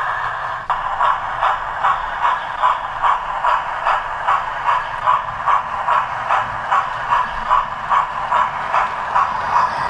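Model railway train running along the track: a steady whir with an even, regular beat about two or three times a second, starting about a second in.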